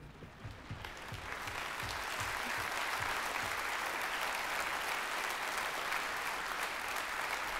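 Theatre audience applauding, swelling over the first second and then holding steady.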